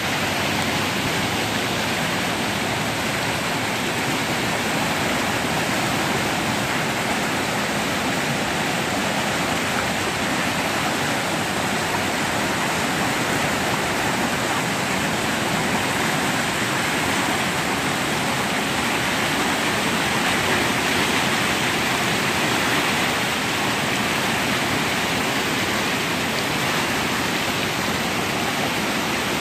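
Rappahannock River in flood, its muddy high water rushing through rapids and over boulders as whitewater: a steady, loud rush of water that holds even throughout.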